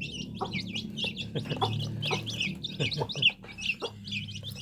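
Chickens: many chicks peeping in rapid, continuous high chirps over a low steady clucking.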